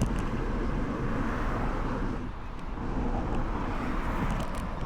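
Road traffic going by: a steady noise of car tyres and engines that eases briefly about halfway through.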